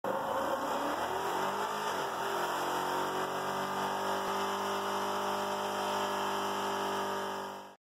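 Pickup truck engine revving up over the first two seconds, then held at high revs through a tyre-smoking burnout, cutting off suddenly near the end.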